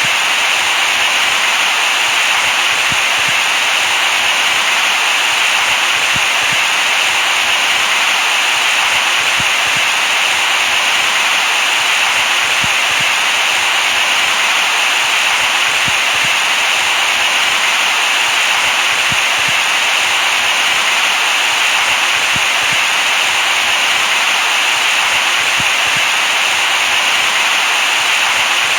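Steady white noise for lulling a baby to sleep: an even, bright hiss that never changes in level.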